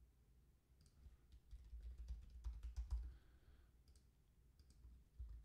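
Faint computer keyboard typing: a quick run of keystrokes with dull thumps from about a second in, then a few more keystrokes near the end.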